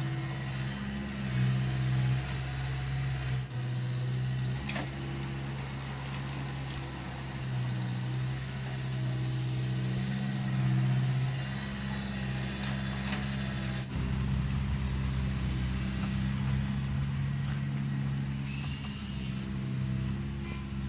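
Heavy construction machine's diesel engine running steadily, with a few brief knocks.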